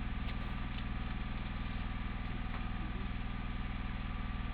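Generator engine running steadily at a constant speed, with no change in pitch or loudness.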